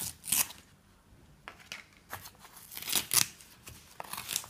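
The white inner seal of a Herbalife shake powder canister being peeled back and torn away by hand, in several short bursts of tearing and crinkling.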